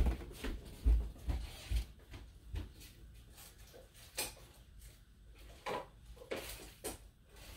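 Rummaging while searching for packaging: scattered thumps, knocks and clicks of things being moved about and handled. The heaviest thump comes about a second in, and sharper clicks follow later.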